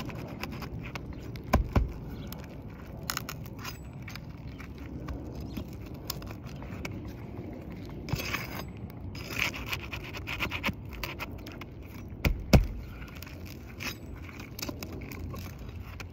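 Flat pry bar scraping and working under asphalt roof shingles to loosen them and pull their nails: irregular gritty scrapes and clicks, with two sharp knocks, the louder one near the end.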